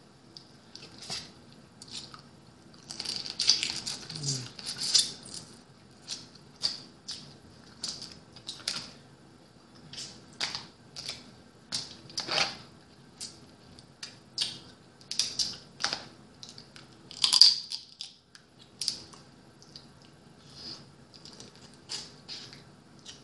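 Boiled blue crab shells and legs being cracked and picked apart by hand: an irregular string of sharp cracks and clicks, about one every half second to a second, loudest about 17 seconds in, with eating sounds as the meat is pulled out and eaten.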